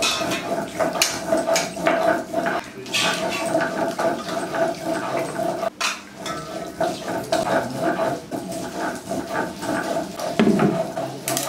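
Chana dal being ground by hand on a stone slab with a grinding stone: a steady run of rough scraping strokes.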